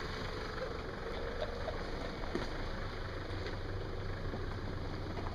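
Off-road 4x4 vehicle's engine running steadily at low speed, a low even hum with no revving.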